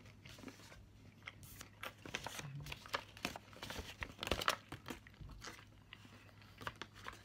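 Paper wrapper of a Tony's Chocolonely chocolate bar crinkling as it is handled and folded, a run of crackles loudest about four seconds in.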